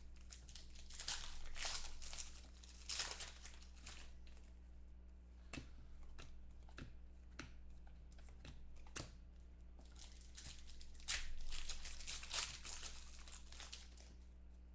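Foil wrappers of football trading-card packs being torn open and crinkled by hand, in two stretches of crackling about a second in and again near ten seconds in, with small ticks and taps of cards between, over a faint steady hum.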